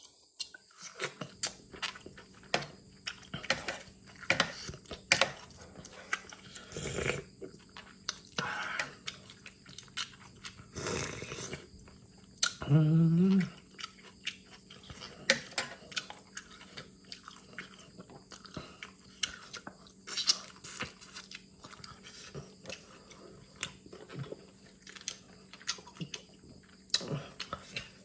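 Close-up chewing and crunching of salad vegetables, a steady run of small crunches and clicks. About 13 s in there is a short rising hum from the eater.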